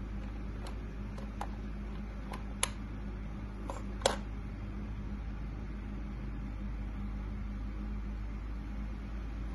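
Scattered light clicks and taps as a kitten bats a plush toy mouse with a hard base about on a tile floor, two of them sharper and louder, about two and a half and four seconds in. A steady low hum runs underneath.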